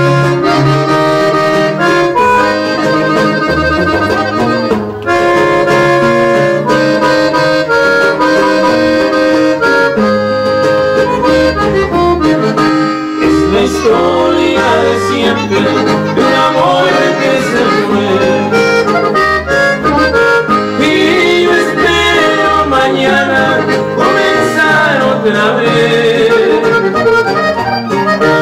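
Live norteño music: a button accordion carries the melody over bajo quinto strumming and bass notes. The accordion plays held chords and runs that grow busier toward the end.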